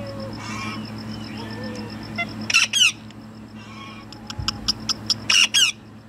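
Parrots squawking: a pair of shrill screeches about halfway through, then a quick run of short chirps and more loud screeches near the end.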